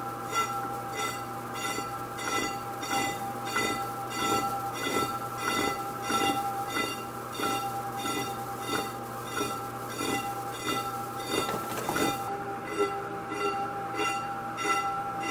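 Small metal lathe taking an interrupted facing cut on an 18-inch metal sander disc. The tool catches the disc in a regular beat a little under twice a second, over a steady high ringing: harmonic ringing and chatter from the cut skipping about half the disc, which spoils the finish.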